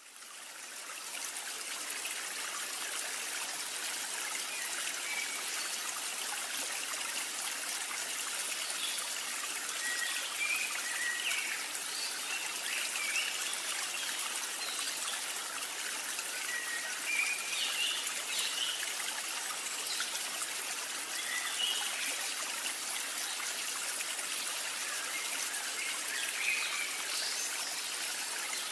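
Steady trickling water of a small stream, fading in over the first second or two, with scattered short bird chirps over it.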